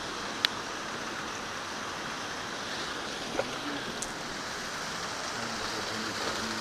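Steady rush of rain and flowing river water over wet bedrock, with a sharp click about half a second in and a couple of faint knocks a few seconds later.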